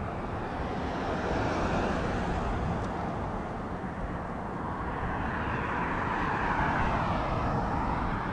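Jet aircraft noise on an airport ramp: a steady rush that swells about a second in and again later, sweeping in pitch as the source moves.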